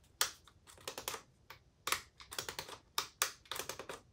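Repeated sharp plastic clicks, a dozen or so at an irregular pace, from a cordless drill's trigger and forward/reverse switch being worked while the motor stays silent: the drill is dead in both directions, which the owner puts down to the old battery's overcurrent protection having cut out.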